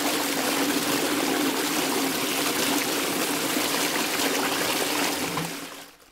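Toilet flushing: a steady rush of water that fades out near the end.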